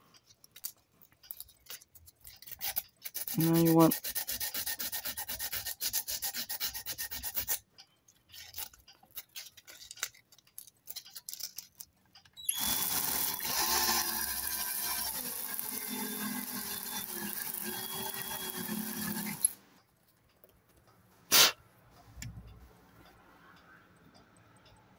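Cordless DeWalt drill spinning a Polaroid SX-70 motor armature in its chuck while 120-grit sandpaper is held against the commutator, rubbing off the carbon buildup. There are two runs of about seven seconds, the second louder, with a pause between, then a single sharp click.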